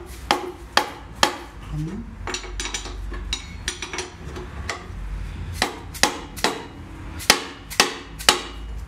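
Hammer striking metal in a string of sharp, irregular blows, some ringing briefly, while working on a seized bolt that won't turn. The heaviest blows come in a cluster near the start and again in the last three seconds, with lighter taps between.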